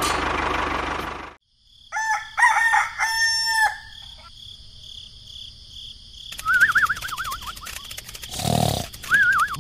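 Loud noise that cuts off suddenly about a second and a half in, then a rooster crowing: two short notes and a long held one. A warbling high call follows later, twice, with a brief low noise burst between.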